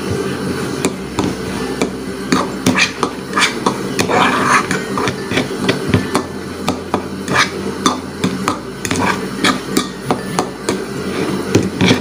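A spoon stirring ground peanuts into water in a bowl to dissolve them, knocking against the bowl in quick, irregular strokes.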